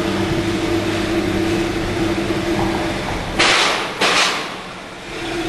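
A 1998 Mercedes-Benz E320's 3.2-litre V6, heard from inside the cabin, drones steadily under throttle while misfiring and bogging down; the owner suspects plugged catalytic converters. About three and a half seconds in, two short rushing hisses cut over it, and the drone fades for a moment before coming back.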